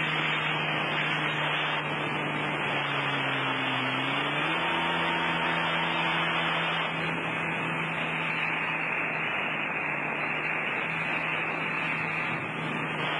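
Personal watercraft engine running at speed under a steady rush of water and wind, its pitch stepping up about four seconds in.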